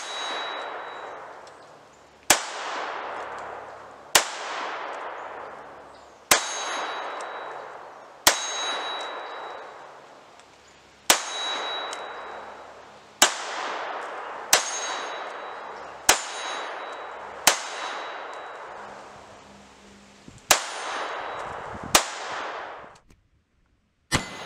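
Beretta Model 81 .32 ACP (7.65 mm Browning) semi-automatic pistol fired in slow, deliberate single shots, about a dozen, one every two seconds or so. Each shot is followed by a long echo dying away, and a faint high ring lingers after several of them.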